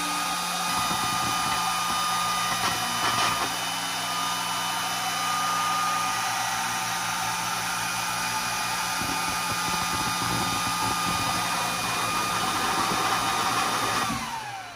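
AtomStack A70 Max diode laser engraver running a small cutting job in plywood: the laser module's fans give a steady whir with a high whine over it. Just before the end the job finishes and the whine slides downward as the fans wind down.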